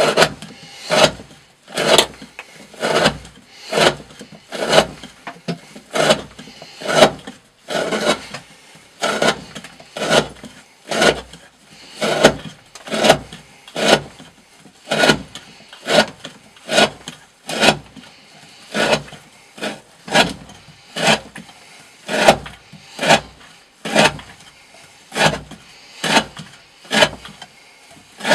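A D2 steel knife slicing through 20 mm rope again and again, one rasping cut about every second, in a steady rhythm.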